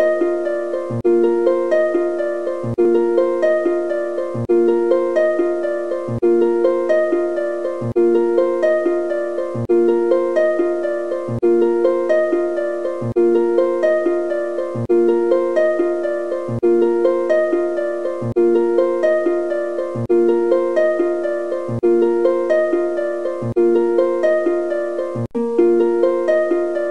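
Background music of quick plucked-string notes, harp-like, in a short phrase that repeats about every second and three-quarters, each repeat opening with a low note.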